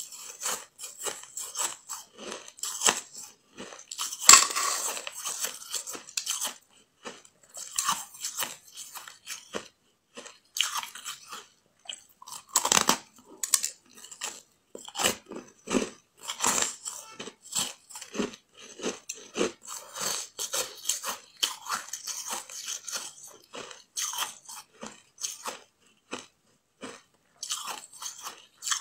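Close-up biting and chewing of a ball of compacted frozen ice made without added water, crunching and crackling in irregular bursts. The loudest crunch comes about four seconds in.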